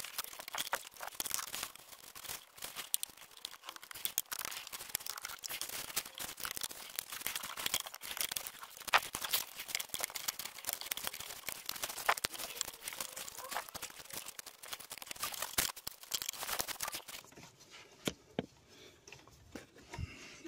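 Irregular crackling, scraping and clicking of a socket wrench and long extension being worked on bolts deep in an engine bay, with metal and hands rubbing against the parts around it. It quietens about three seconds before the end.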